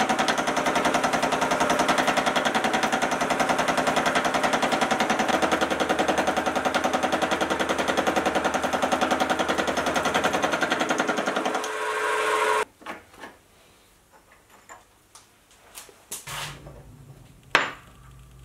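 Mini vertical mill's cutter milling a mild steel bar in a vise: a loud, steady cutting rattle with a fast even pulse that stops abruptly about twelve seconds in. A few light clicks follow, then a sharp knock as the steel bar is handled on a wooden bench.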